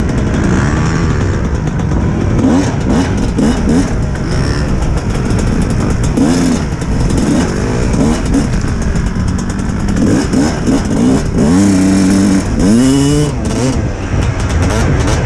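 Kawasaki dirt bike engine revving up and down as it is ridden over a rough trail, its pitch rising and falling with the throttle and gear changes, over a heavy low rumble. About two thirds of the way through it holds a steady pitch, then revs up sharply.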